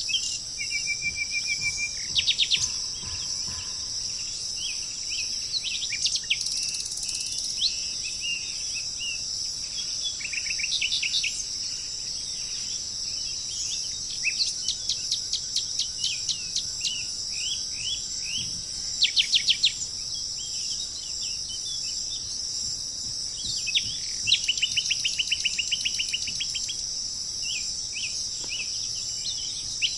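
Songbirds calling with short chips and quick rapid trills, several in a row, over a steady high-pitched chorus of insects.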